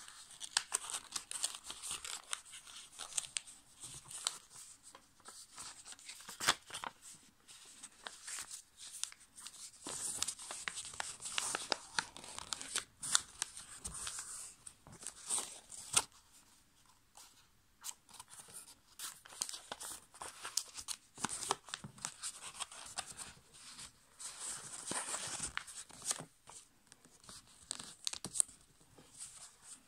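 A5 copy paper crackling and rustling as it is folded by hand on a table, with irregular sharp scrapes and clicks as the fingers press the creases flat, and a brief quieter lull a little past the middle.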